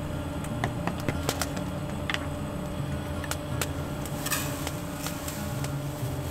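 Paper wrapping crinkling and rustling as a small package is unwrapped by hand, with scattered light clicks and taps and a longer crinkle about four seconds in.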